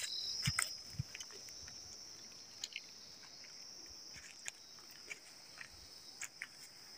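A steady high-pitched insect trill, with scattered light crackles and a few soft thuds: dry rice straw rustling in a large carried bundle and footsteps on a rocky path.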